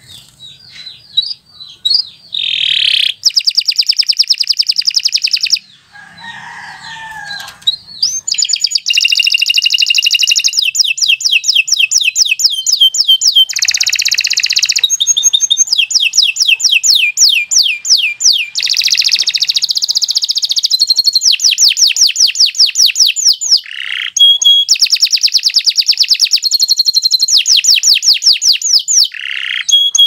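Canary singing a long, loud song: after a few soft chirps, phrase after phrase of very fast trills of repeated notes, with only short breaks between them.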